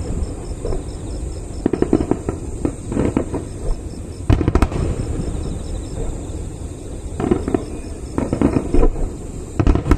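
Aerial fireworks bursting in a finale display: about six volleys of rapid crackling bangs a second or two apart, over a continuous low rumble.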